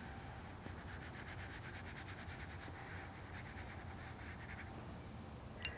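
Watercolour brush scrubbing paint onto paper in quick, faint back-and-forth strokes, with a short click near the end.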